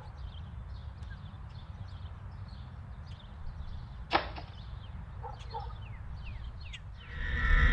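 Small birds chirping repeatedly over a low steady rumble. About four seconds in, a single sharp click, which is the wooden door's latch. Near the end, eerie background music swells in.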